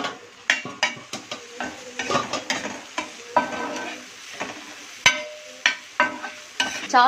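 Steel spatula scraping and knocking on a flat dosa griddle as it stirs and spreads a sizzling egg and onion mixture. The strikes come irregularly, several a second, some with a brief metallic ring, the sharpest about five seconds in.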